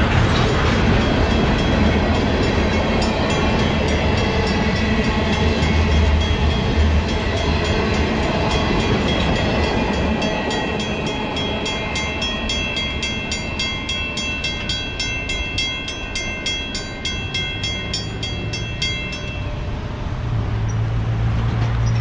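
Freight train of tank cars rolling through a grade crossing, its rumble thinning as the last cars pass, while a Western-Cullen-Hayes mechanical crossing bell rings steadily in rapid strokes. The bell stops a couple of seconds before the end, and a pickup truck's engine comes up.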